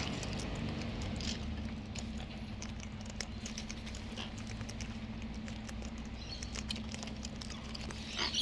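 Cockatoos eating seed: many small scattered clicks and crunches of beaks cracking and nibbling, over a faint steady low hum, with a short bird call near the end.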